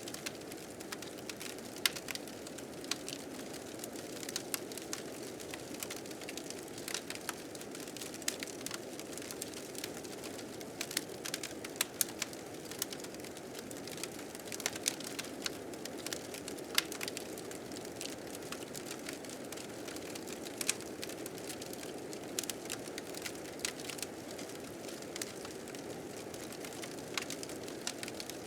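A fire crackling with frequent irregular sharp pops, over the steady rushing of blizzard wind.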